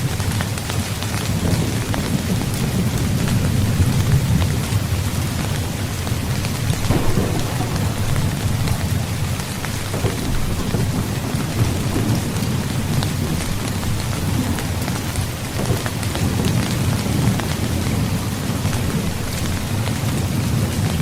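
Heavy, steady rain with low rolling thunder rumbling underneath, swelling and easing every few seconds.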